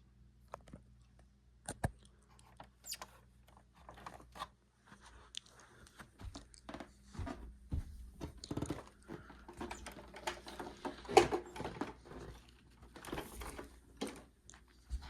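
Irregular clicks, knocks and rustles of a Hoover PowerMax upright vacuum being handled, with its motor off. The clicks get busier partway through, and one sharp knock near the middle is the loudest.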